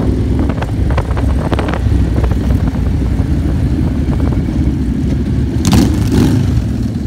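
Cruiser motorcycle running at road speed, its engine mixed with heavy wind rush on the microphone, with a brief louder rush a little before six seconds in.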